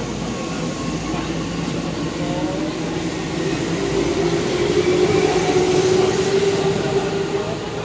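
Keihan 2200 series electric train moving off along the platform. Its motors hum with a tone that climbs in pitch, and the sound grows louder about midway as the cars run past.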